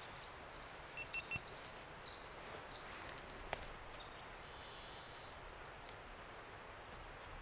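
Faint woodland ambience with high-pitched songbird trills, several overlapping, three short peeps about a second in, and a single tick about halfway through.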